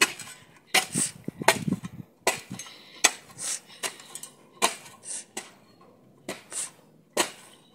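Metal spade blade jabbing and scraping into lawn soil: about a dozen short, sharp chinks and scrapes at an uneven pace.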